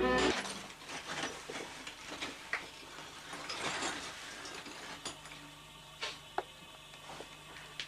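Violin music cuts off at the very start. Then scattered small clicks, knocks and scrapes of things being handled, with a faint steady low hum coming in about halfway through.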